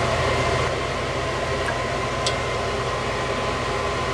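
Steady mechanical hum and hiss with a faint high steady tone, with one small click about two seconds in.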